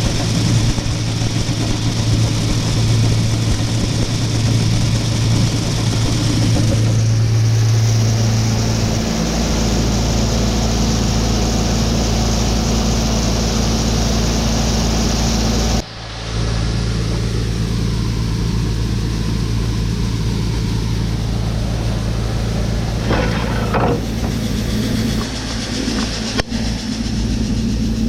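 Heavy farm machinery engine running steadily. Its note changes about eight seconds in, and the sound breaks off abruptly for a moment about sixteen seconds in.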